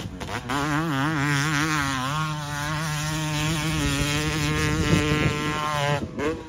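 Dirt bike engine running under throttle, its pitch rising and falling quickly for the first couple of seconds, then holding steadier before dropping away near the end.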